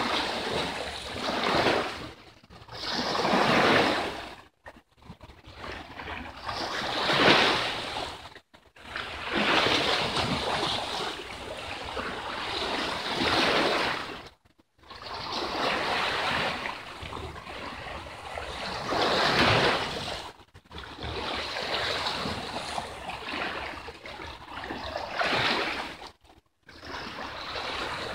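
Sea waves washing in over shore rocks, the surf swelling and falling back every few seconds, with some wind on the microphone.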